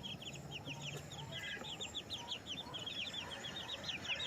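A flock of young chicks peeping: a continuous chorus of short, high, downward-sliding peeps, several a second and overlapping, with faint low clucking underneath.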